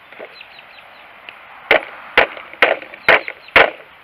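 Cold Steel Finn Bear knife's 4-inch stainless blade chopping into a stick of wood on a board: a few light taps, then, from nearly two seconds in, five sharp chops about half a second apart.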